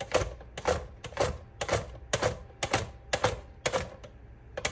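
Cucumber being sliced on a plastic mandoline slicer: a sharp chop each time it is pushed across the blade, in an even rhythm of about two strokes a second.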